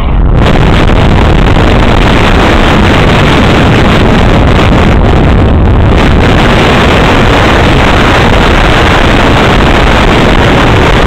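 Loud, steady rushing wind noise on the microphone, with no distinct pitch. It sets in abruptly at the start and does not let up.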